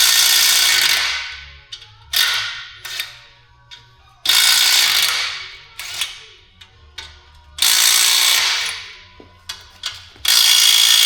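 A compressed-air tool in short blasts: five sharp-starting hissing spurts of one to two seconds each, each trailing off, with pauses between.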